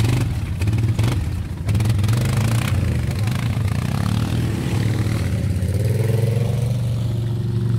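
Suzuki KingQuad ATV engine running close by, revving up and down as the quad pulls away, with a rising rev about five seconds in.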